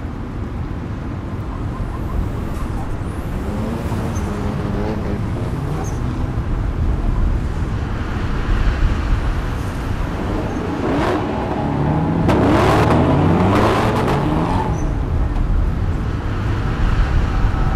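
Motor vehicles over a steady low rumble. A few seconds in, one passes with a rise and fall in pitch. Around the middle, a louder one accelerates through several gear changes as it goes by.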